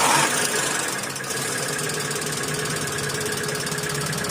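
Hyundai Accent petrol/CNG engine just started with its accessory belt off, flaring briefly and settling to idle about a second in, with a rapid ticking clatter running through it. The mechanic takes the ticking for noisy tappets, with a further noise coming from the front of the engine; the timing bearing is silent.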